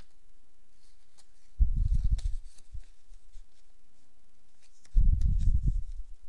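Folded origami paper units being handled and tucked together: faint paper rustles and small crinkling clicks, with two heavy low handling thumps, about one and a half seconds in and again about five seconds in.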